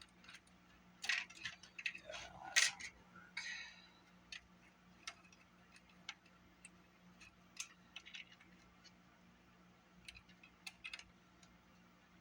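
Small metal and plastic parts clicking and rattling as they are handled, with a cluster of louder clacks about one to three seconds in and scattered light ticks after.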